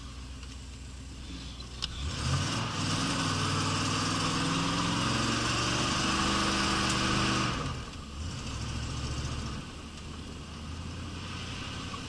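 Car engine pulling under acceleration, its pitch climbing slowly for about five seconds with a hiss over it, then dropping off suddenly to a low steady note that fades a couple of seconds later.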